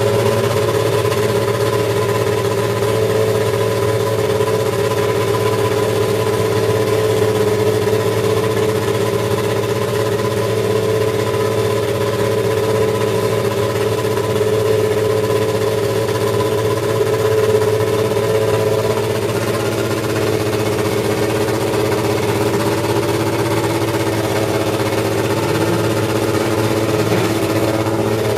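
Brabham BT52's BMW M12/13 1.5-litre turbocharged four-cylinder Formula One engine idling steadily, heard close up at the open engine bay.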